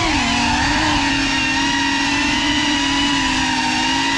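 Brushless motors of a Geprc 5 FPV quadcopter whining in flight, several close pitches together. The pitch wavers for about the first second, then holds steady.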